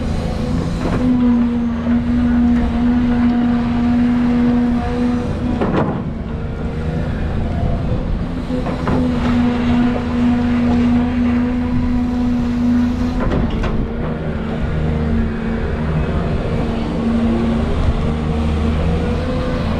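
Volvo EC220 tracked excavator working, its diesel engine and hydraulics running steadily with a whining tone that fades and returns as the boom and bucket move. A few knocks come as the bucket works the soil.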